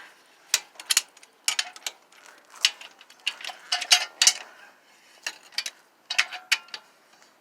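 Irregular metallic clicks and clanks of hand tools being handled for a tire change, some of them ratchet-like.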